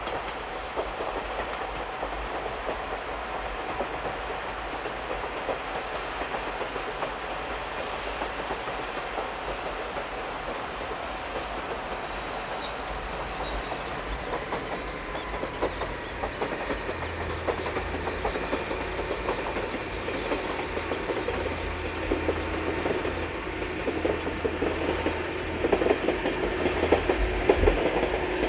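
Wakasa Railway diesel railcar running along the line, wheels clicking over the rail joints. Its low engine drone comes in past the middle and grows louder toward the end.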